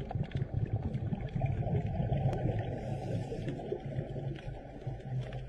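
Muffled underwater sound: a low rumble with bubbling from a scuba diver's regulator exhaust, a little louder around the middle.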